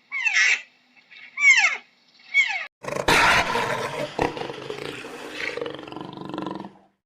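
Several short high calls that fall quickly in pitch, then, about three seconds in, a big cat roaring: a loud, rough roar lasting nearly four seconds.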